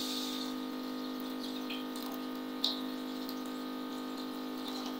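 Water poured from a plastic jug into a frying pan of halwa mixture, a steady trickle and splash, over a steady hum. One short knock about two and a half seconds in.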